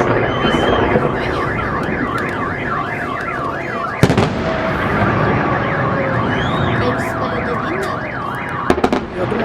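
Car alarm siren warbling rapidly up and down, about four sweeps a second, with a sharp firework bang about four seconds in and a few more near the end.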